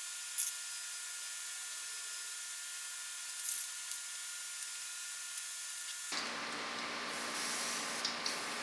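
Aerosol can of two-part epoxy primer spraying in short hisses over a steady background whir. About six seconds in, the sound changes suddenly to a fuller, steady rushing noise.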